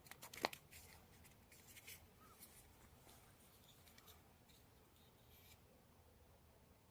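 Faint handling noise: a few soft clicks and rustles, the sharpest about half a second in, dying away after about five seconds to near silence.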